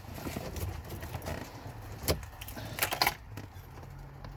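A few irregular sharp clicks and knocks from hand work on parts behind the glove box of the dashboard, the loudest about three seconds in, followed by a faint steady low hum.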